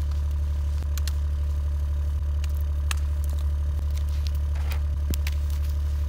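Side-by-side utility vehicle's engine idling steadily close by, with a few light snaps and crackles over it.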